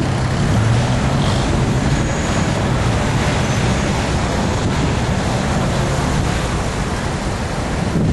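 Steady rush of wind and road noise from a moving car, with a low engine hum that is strongest in the first second or so and then sinks into the noise.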